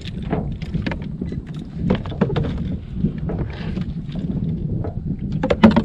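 Low steady rumble of wind and water around a small open fishing boat, with scattered knocks and clicks of fish and tackle being handled aboard; a louder knock near the end.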